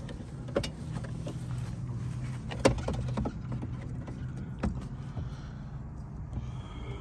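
Steady low hum of a running car, with a few sharp clicks or knocks, the loudest about two and a half seconds in.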